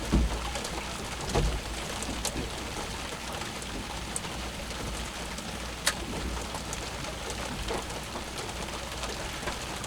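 Steady rain falling, an even hiss throughout, with a couple of sharp clicks.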